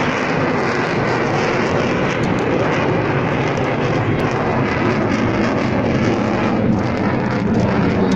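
Spanish Air Force F-18 Hornet fighter jet in flight, its twin turbofan engines making a loud, steady jet noise.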